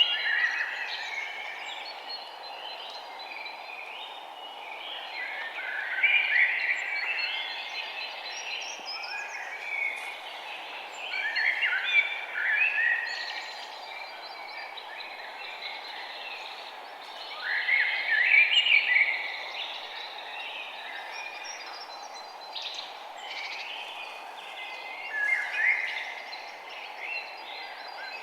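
Forest ambience: songbirds chirping and singing in louder phrases roughly every six seconds over a steady background hiss.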